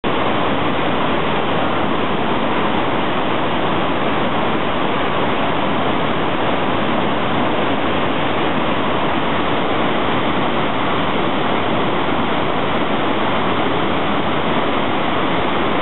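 Niagara Falls: a loud, steady roar of heavy falling water.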